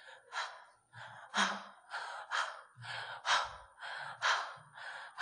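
A woman repeatedly breathing out the voiceless phonics sound for the letter H: short breathy 'h' puffs, about two a second.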